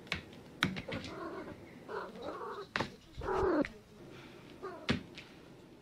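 A domestic cat meowing three short times, the last one the loudest, between sharp knocks and thumps as it jumps and lands on a hard floor among shoes.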